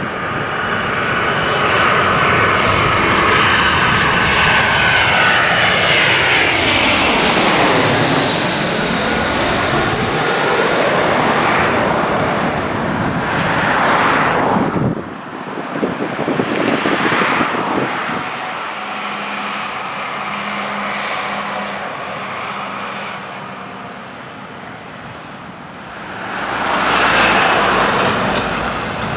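Jet airliner engines passing close by, loud and steady, with the engine whine falling in pitch and a sweeping whoosh as the aircraft goes past about eight seconds in. The noise cuts off suddenly about halfway through, then jet noise swells again near the end.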